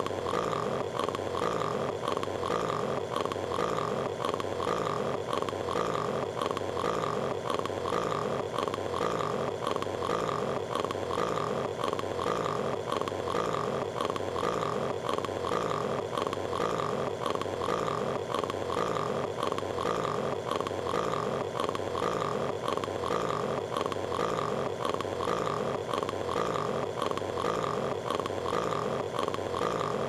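A cartoon character's open-mouthed guttural vocalizing, one short sound looped over and over at an even, quick rate with no change.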